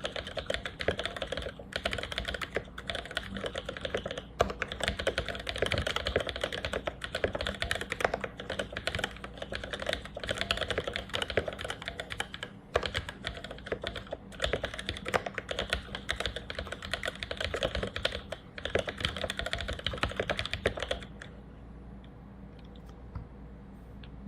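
Fast, continuous typing on an Exent mechanical keyboard with lubed NOS vintage Cherry MX Black linear switches: a dense, uneven stream of key clacks. The typing stops about three seconds before the end, leaving only a faint background and a couple of stray taps.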